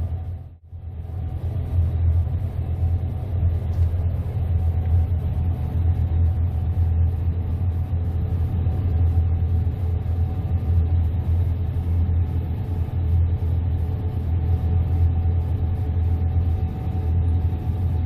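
Gleaner S98 combine harvester running steadily under load, a deep continuous drone with faint steady tones above it. The sound drops out briefly about half a second in, then resumes.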